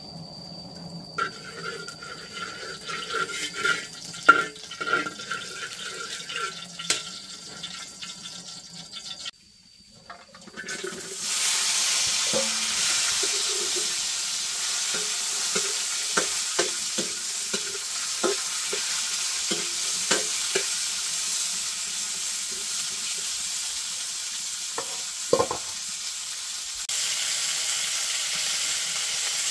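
Scattered knocks and clicks for the first nine seconds or so. Then, after a brief gap, food frying in a hot pan with a steady sizzle, and a utensil knocking against the pan again and again as the food is stirred.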